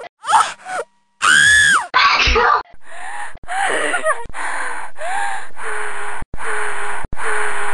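A staged sneeze performed by a voice, in short pieces with abrupt cuts between them: quick voiced catches of breath and a high-pitched squeal that rises and falls, then a run of breathy, hissing breaths that each stop suddenly.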